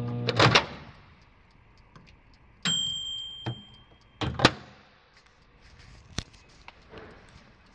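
Dial-timer microwave oven: its running hum cuts off just after the start with a couple of clicks, and about three seconds in its timer bell rings once and dies away. A pair of loud clunks follows about a second later, then a single sharp click near the end.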